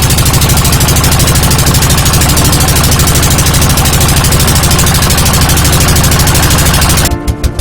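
Boat engine running loudly and steadily with a fast, even chugging pulse. It cuts off abruptly about seven seconds in, and music with a regular beat takes over.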